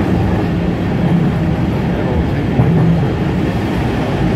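Heritage railway carriage running along the track behind steam locomotive 3526, heard from inside the carriage: a steady, loud rumble and rattle of wheels on rails and the carriage body.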